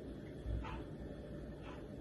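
Hands rubbing together with alcohol-based hand rub, fingertips worked in the palm, giving faint swishes about once a second. A soft low thump comes about half a second in.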